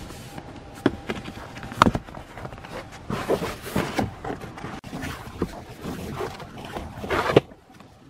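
Handling noise: two sharp clicks or knocks, then stretches of rustling and rubbing, as hands work at a carpeted car floor mat close to the microphone.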